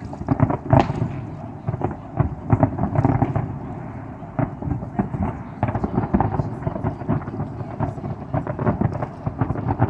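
Fireworks from several displays going off in quick, irregular succession: a dense run of booms and crackles.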